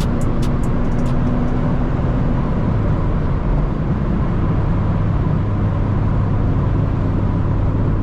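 Lexus IS300's 2JZ-GE inline-six running steadily under way, with tyre and road rumble, heard from inside the moving car.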